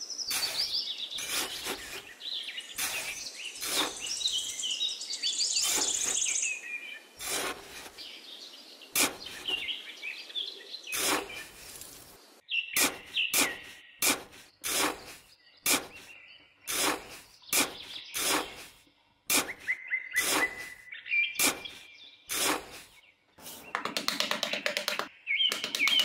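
Small metal hand trowel scraping and cutting into damp sand in a series of short, sharp strokes at irregular intervals, with birds chirping throughout.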